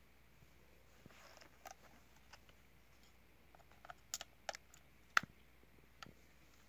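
Faint, scattered small plastic clicks and taps as a new thread bobbin is fitted onto a Golden Spike handheld sewing machine, with a brief soft rustle about a second in; the sharpest click comes about five seconds in.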